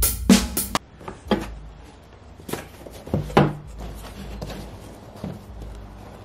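A few drum hits end abruptly within the first second. Then cardboard boxes are handled: scattered soft knocks and scrapes as a Funko Pop box is lifted out of a cardboard shipping carton.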